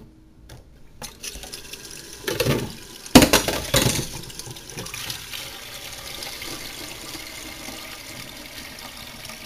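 Water running from a tap to fill the coffee maker's water reservoir, a steady rush with a couple of louder splashes and knocks a few seconds in.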